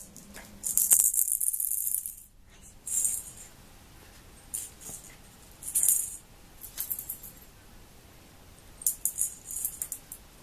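Several irregular bursts of dry, high rattling, like a small rattle being shaken or batted about, the longest lasting about a second.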